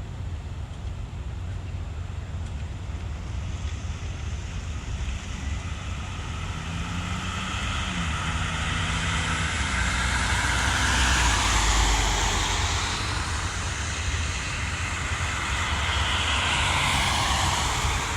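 A vehicle passing: a rushing noise that slowly builds to a peak about twelve seconds in, eases, then swells again near the end.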